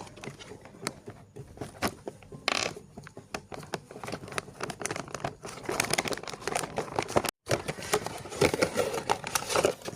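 Plastic packaging crinkling and rustling, with scattered clicks and taps from handling, as a toy blind box is unwrapped.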